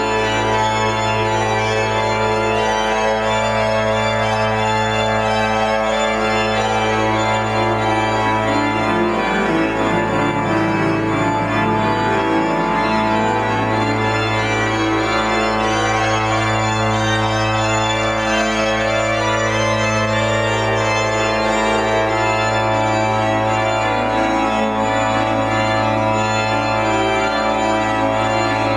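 Pipe organ playing held chords over a low pedal note that is restruck about every three seconds.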